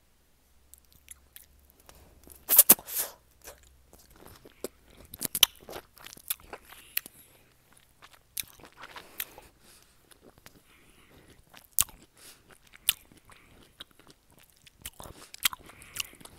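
Crunchy food being bitten and chewed right against a wired earphone's in-line microphone: irregular close-up crunches and mouth clicks, the loudest about two and a half seconds in.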